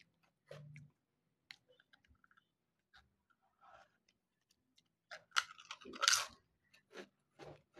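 Lay's seaweed-flavoured potato chip bitten and chewed close to the microphone: a few faint mouth clicks, then a dense run of loud crunches from about five seconds in.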